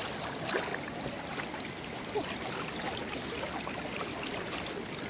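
Fast-flowing muddy river rushing steadily over shallow riffles.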